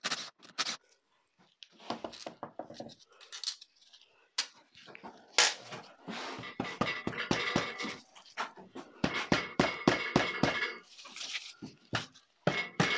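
Socket ratchet clicking in short runs as 13 mm casing bolts on a gearbox are undone, with knocks of tool on metal. A thin steady high whine runs through the middle stretch, from about six seconds in to about eleven.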